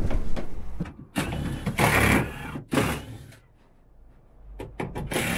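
A small motor running in two bursts, the longer one about a second and a half, then a pause and a few sharp clicks near the end.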